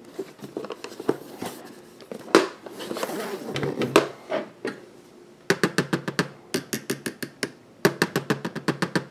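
A hard carrying case being handled and knocked as it is set down, then tapped rapidly and evenly, about five or six sharp taps a second in two runs, each tap ringing hollow off the case shell, as if testing whether the shell is plastic or aluminum.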